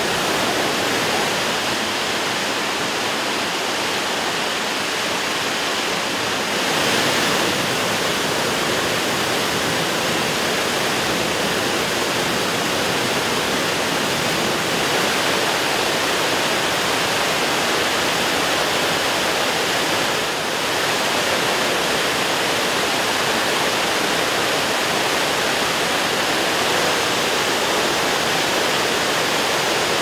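The Reichenbach Falls' mountain torrent rushing over rock cascades into a pool: a loud, steady wash of falling water. Its tone shifts slightly about seven seconds in and again about twenty seconds in.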